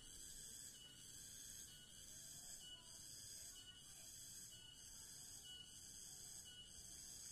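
Faint high-pitched chirping of insects such as crickets, pulsing a little more than once a second.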